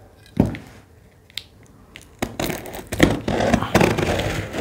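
Scissors cutting into the wrapping sheet at the top of a large cardboard gift carton: a knock about half a second in, then from about two seconds in a continuous crinkling, scraping rustle as the sheet is cut and torn.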